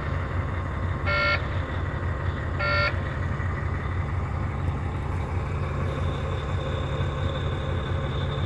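2006 Volvo truck's diesel engine idling steadily, heard from inside the cab. The dashboard warning chime beeps twice in the first three seconds, about a second and a half apart, and then stops. The chime goes with the red warning lamps lit on the instrument cluster.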